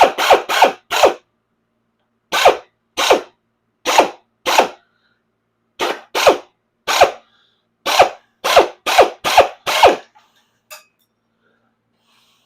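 Power nibbler cutting sheet steel in short bursts of about a third of a second each, triggered on and off so it doesn't run away. The bursts come in quick runs with short gaps and stop about ten seconds in.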